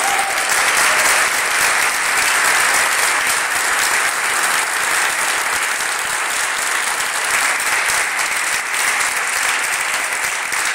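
A large audience applauding, dense steady clapping that eases a little near the end.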